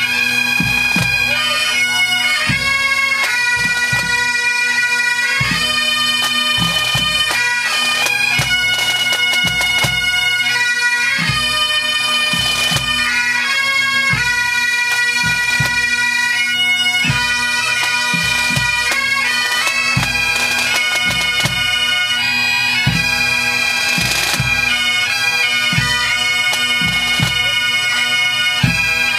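Pipe band playing: Highland bagpipes sound a melody over their steady drone, with snare, tenor and bass drums keeping the beat.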